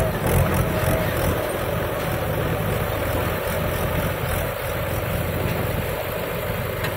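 Mahindra 415 DI tractor's four-cylinder diesel engine running steadily under load as it tows a trolley heaped with soil.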